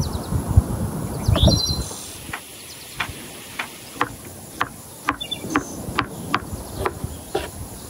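Birds chirp over a low rumble and a couple of thumps in the first two seconds. Then a crinkle-cut knife chops through melon flesh onto a wooden cutting board, about two sharp strokes a second.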